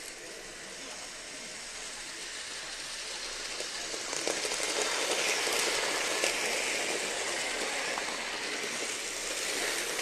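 DigiQ Train toy Shinkansen running on its track: a small motor whirring with the wheels rattling, louder from about four seconds in and easing slightly near the end.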